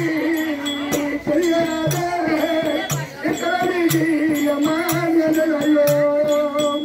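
Folk music: a wavering melody line, sung or played, held over a steady drum beat with sharp clicking percussion.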